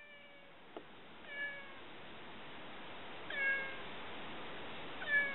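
A cat meowing: four short meows about two seconds apart, each dipping slightly in pitch, the later ones louder.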